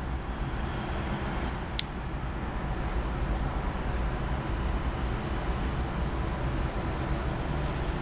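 Steady low rumble of city traffic rising from the streets below a high-rise, with one sharp click about two seconds in.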